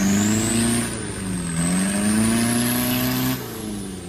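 Off-road 4x4 truck's engine revving up twice under load, with a high whine that rises and falls with the revs; the revs drop away near the end.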